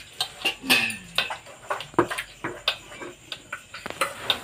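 Steel kitchen bowls clinking and knocking as they are handled and set down, with a string of irregular sharp taps.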